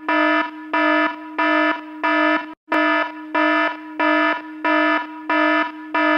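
Bedside alarm going off: a repeating buzzy beep, about three beeps every two seconds, which wakes a sleeper. The beeping breaks off for a moment about two and a half seconds in, then carries on.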